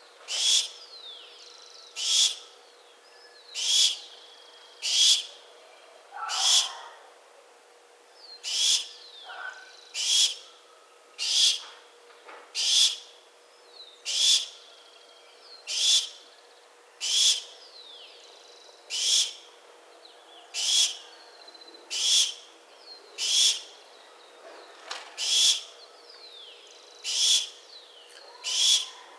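Barn owl giving short, harsh, hissing screeches, repeated about every one and a half seconds, around twenty in a row. A faint steady hum runs underneath.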